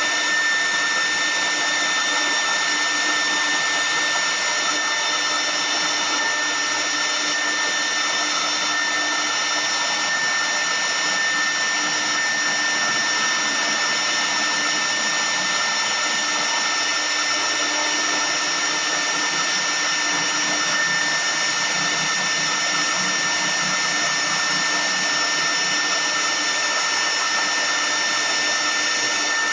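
CNC wood router's spindle running with a steady high whine, its bit carving relief into a wooden column.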